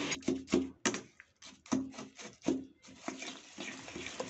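Metal spoon stirring grated date-palm jaggery into a thick milk and coconut mixture in a pan: a run of irregular scrapes and knocks of the spoon against the pan.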